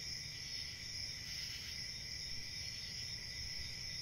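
Crickets trilling in a steady chorus over a low hum of room tone.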